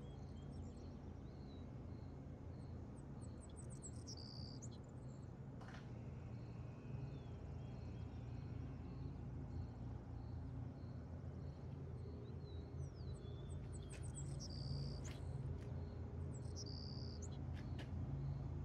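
A steady low hum with faint bird chirps and short trills now and then, over an even, faint ticking chirp.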